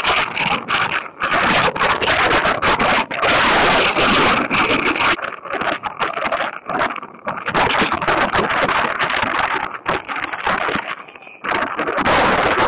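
Strong wind rushing over the microphone in irregular gusts that cut in and out.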